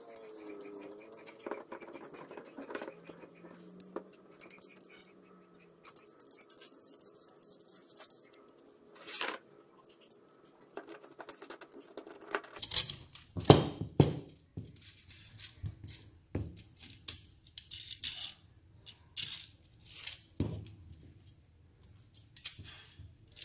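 Small steel hardware clicking and clinking as it is handled and fitted together: a threaded rod, wing nuts, washers and flat steel bars. The clicks are sparse at first, then a cluster of louder metal knocks comes a little after halfway.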